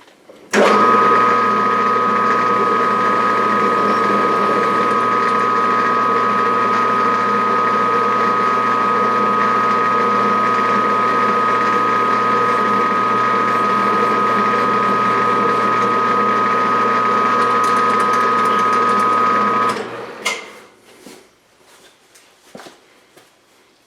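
Metalworking machine tool running: its motor and gearing start abruptly about half a second in, run at a steady pitch with a high whine for about nineteen seconds, then stop. A few light clicks of handling follow.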